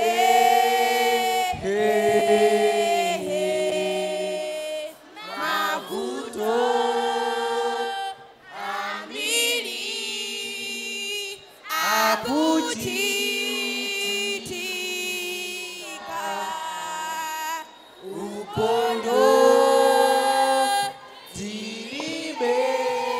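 A group of young voices singing a song unaccompanied, in phrases of a few seconds with short breaks between them.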